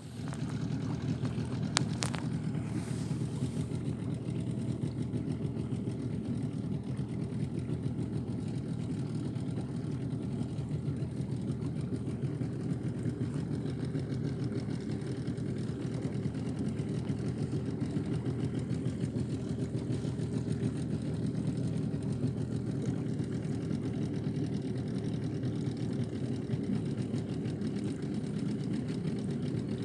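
A boat's outboard motor running steadily, a low even drone with no change in speed. Two sharp clicks come about two seconds in.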